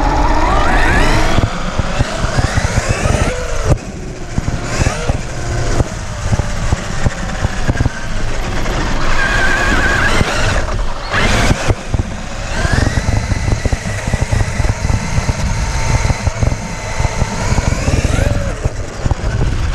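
Electric RC truck's motor whining, its pitch rising and falling with the throttle and sometimes held steady for a few seconds, over a rough rumble from the drivetrain and terrain. It eases off briefly a few times.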